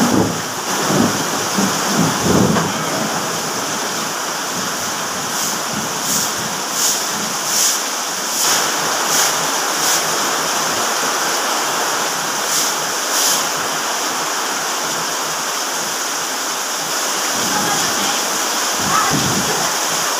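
Heavy rain pouring steadily onto a wet concrete lane and roofs. Over it come regular swishes of a broom sweeping the wet ground, about one stroke every two-thirds of a second, in a run of strokes in the middle and two more a little later.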